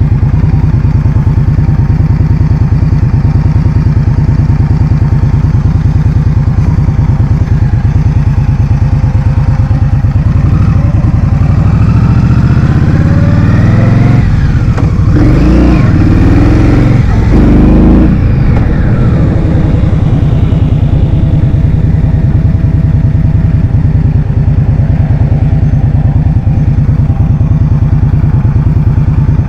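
Heavy wind noise buffeting the microphone while riding, a loud, fluttering low rumble. An engine's pitch rises and falls between about ten and nineteen seconds in.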